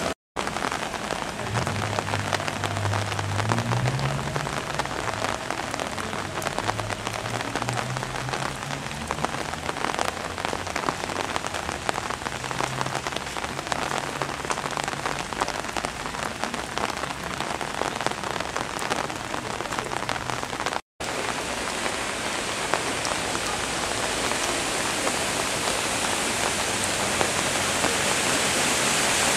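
Heavy rain pattering densely on wet pavement and flooded street, with a low hum beneath it for the first half. Near the end a rising rush of water as a van drives through the flooded road, throwing up spray.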